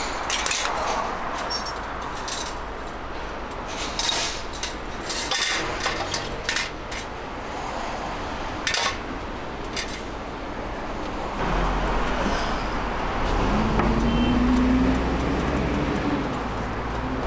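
Metal cooking tools clinking and scraping on a hotteok griddle, with scattered sharp clicks over steady street-market background noise. A low rumble comes up about two-thirds of the way through.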